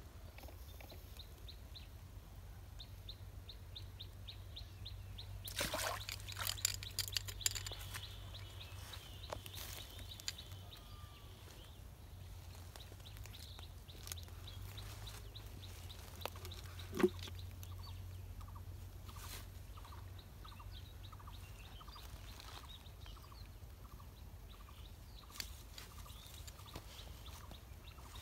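Birds calling over a low steady hum: a rapid run of short high chirps at first, and a row of short lower calls in the second half. A cluster of short noisy bursts comes about six to eight seconds in, and a single sharp knock about seventeen seconds in.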